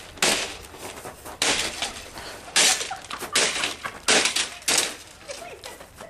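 A Wolfgang Puck coffee maker being smashed: a string of about seven hard blows from a garden tool and stomping feet, each a sharp crash of metal and plastic breaking, at irregular spacing.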